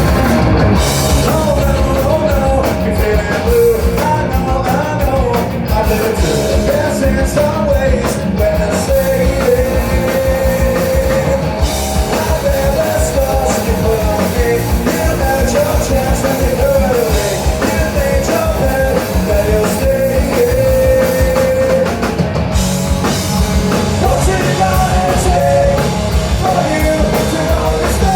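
Rock band playing a song, with drum kit, electric guitar and singing.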